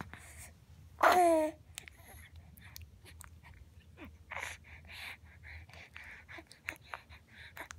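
Tired two-month-old baby grunting: one loud strained grunt with a falling pitch about a second in, then a string of quieter, short breathy grunts and snuffles.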